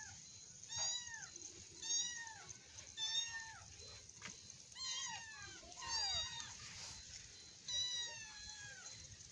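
Kitten meowing repeatedly, short high calls about once a second, each falling in pitch.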